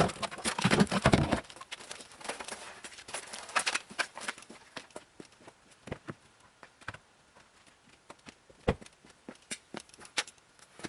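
Handling noise as a trim panel in a car's rear cargo area is worked loose: a loud rustling scrape in the first second and a half, then scattered light clicks and knocks.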